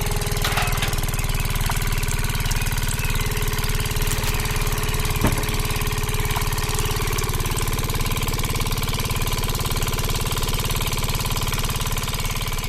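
Engine idling steadily with an even, rapid chugging, and a single sharp click about five seconds in.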